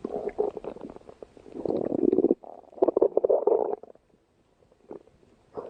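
Stomach growling in several long rumbles, the strongest around two and three seconds in, dying away to faint sounds over the last couple of seconds.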